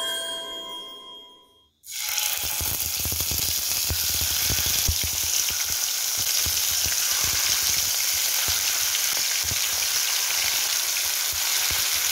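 A short musical chime fades out, then about two seconds in, sardines coated in green masala paste start frying in hot oil in a nonstick pan: a steady sizzle with many small crackling pops.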